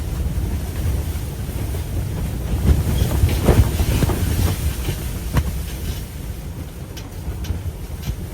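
Blizzard wind buffeting the microphone as a loud, steady low rumble, with a scattering of short crackles and taps in the middle.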